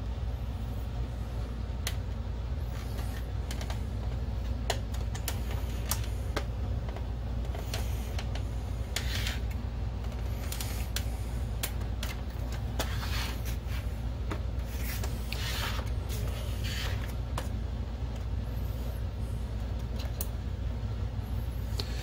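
Scattered clicks, taps and short scrapes of the plastic housing and circuit boards of an Optoma HD20 DLP projector being handled and fitted together, over a steady low hum.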